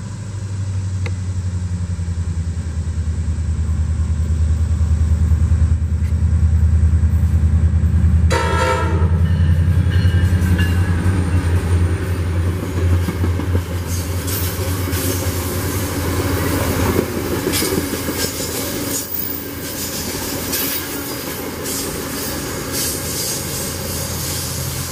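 Virginia Railway Express commuter train passing close by at speed. A diesel locomotive's engine drone builds as it nears, with a brief horn sound about eight seconds in. Then the bilevel passenger cars rush past, their wheels clicking over the rail joints.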